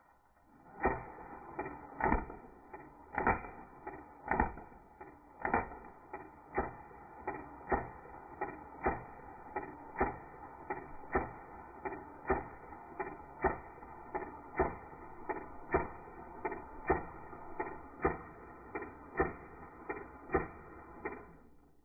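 A long series of airsoft shots at a paper bag, heard slowed down in slow motion: sharp cracks with short tails, about one a second at first and quickening to nearly two a second.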